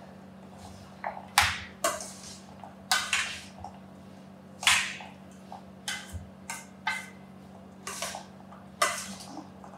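A metal spoon scraping and clinking against a stainless steel mixing bowl as a chickpea salad is tossed, in short irregular strokes about once a second, over a faint steady hum.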